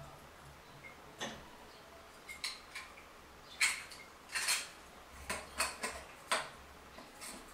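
Chrome flush-valve fittings clinking and clicking against each other as they are handled and fitted together: a string of short, irregular metallic clicks, loudest and thickest in the middle.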